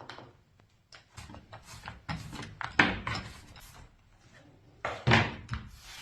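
Irregular handling noises on a wooden workbench: scattered knocks, clicks and rubbing, with two louder thumps, about three seconds and about five seconds in.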